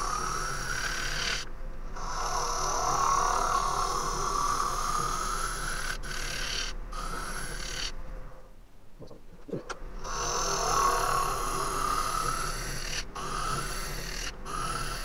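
Turning tool cutting into a spinning green Japanese ornamental cherry end-grain bowl on a lathe, sped up six times: a fast rasping of the cut that swells and falls, broken by several short breaks and one longer pause a little past halfway.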